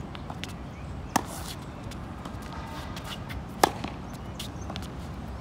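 Tennis rally on a hard court: two sharp racket hits on the ball about two and a half seconds apart, with fainter ball pops between.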